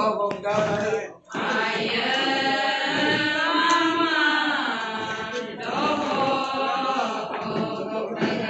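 Group of Adi women chanting a ponung song in unison, many voices holding long sung phrases together. There is a short break about a second in and a brief dip past the middle before the next phrase.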